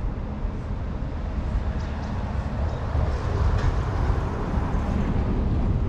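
Wind buffeting the microphone: a flickering low rumble with a rushing swell from about three seconds in.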